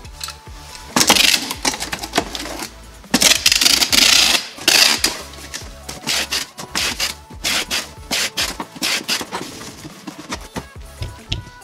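Clear packing tape screeching off a handheld tape-gun dispenser as it is run along the seams of a cardboard box. There are two long pulls, about a second in and again at three seconds, then shorter strips and clicks of the dispenser, over background music.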